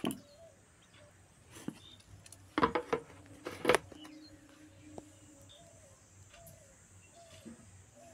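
A steel mixer-grinder jar and its plastic lid being fitted and set onto the mixer base: a few clicks and metal knocks, the loudest about two and a half and three and a half seconds in. Faint bird chirps sound now and then behind them; the mixer motor is not running.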